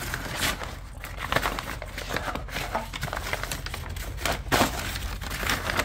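A parts bag crinkling and rustling as it is handled and opened by hand to get at a new part inside.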